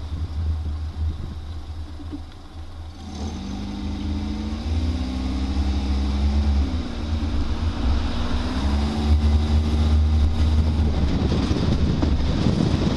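Wind buffeting the microphone on a moving car, under a low road rumble. From about three seconds in, the car's engine hum comes up and shifts up and down in pitch.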